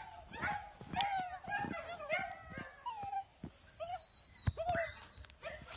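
German Shepherd puppy whining and yipping in a quick string of short high cries, with a few sharp clicks among them.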